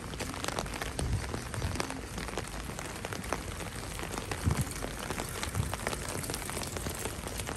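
Heavy rain falling steadily, heard from under an umbrella: a dense, even hiss sprinkled with many sharp ticks of individual drops.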